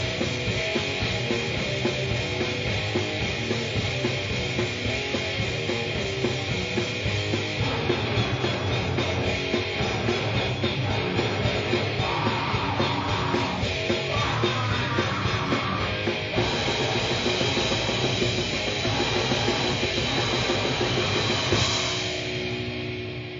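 Grindcore/noise track: a dense wall of distorted guitar and bass over fast drums and cymbals, starting just after a short gap and fading out near the end.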